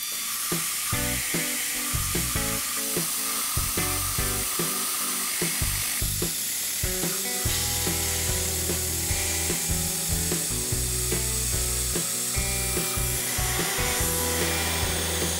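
Steady hiss of compressed air blowing chips off a small milling cutter as it slowly cuts pinion leaves into silver steel, under background music.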